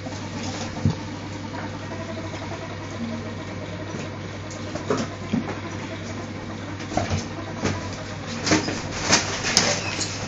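Ferrets playing among plastic pet carriers and fabric tunnels: scattered knocks, scuffles and clicks, busier in the last few seconds, over a steady low hum.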